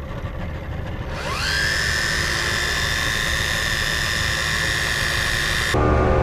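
Daiwa Tanacom 1000 electric fishing reel's motor spinning up with a rising whine about a second in, then winding in the deep-drop line with a steady high whine over the low rumble of the idling boat engine. The whine cuts off suddenly near the end, giving way to the louder steady drone of the boat's engine running underway.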